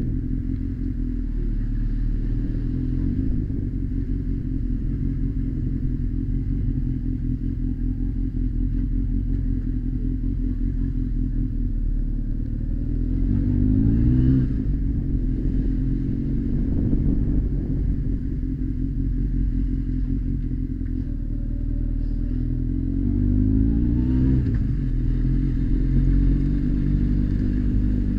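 Honda X4 motorcycle's inline-four engine running at low speed, its pitch rising as it accelerates about halfway through and again near the end.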